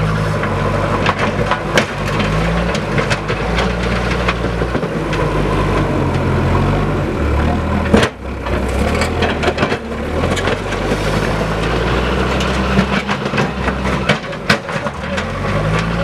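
Tata backhoe loader's diesel engine running, its pitch shifting as the revs change while it moves. Scattered clicks and knocks sound over it, with one loud knock about halfway through.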